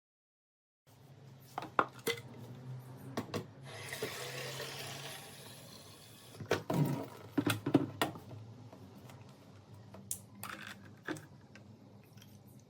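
Scattered clicks and knocks of hard objects being handled, with a brief rush like running water about four seconds in and a cluster of louder knocks a few seconds later.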